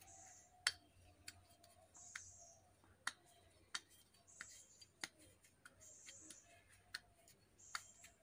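Near silence broken by faint, irregular clicks a second or so apart as a metal rotary bearing housing is handled, with a faint high chirp repeating every couple of seconds.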